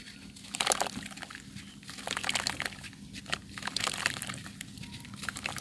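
Clumps of dry yellow sand crunching and crumbling in several short bursts of fine crackling, with quieter gaps between them.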